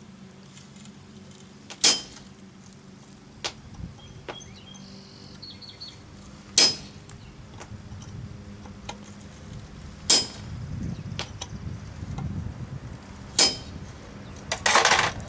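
Hammer striking a punch to set the eyes in a forged bulldog head: four sharp, ringing single blows a few seconds apart, then a longer metallic clatter near the end, over a steady low hum.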